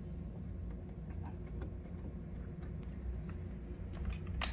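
Faint scattered clicks and taps of metal door-lock parts being handled and fitted, with a sharper click near the end, over a steady low hum.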